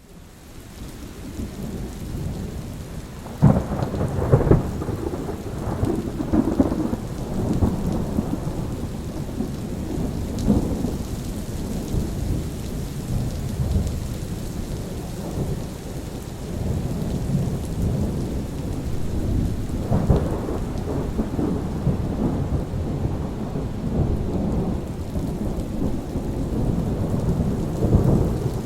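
Thunderstorm: rolling thunder rumbles over steady rain, with a sharper clap about three and a half seconds in and further swells around ten and twenty seconds and near the end. The sound fades up from quiet over the first few seconds.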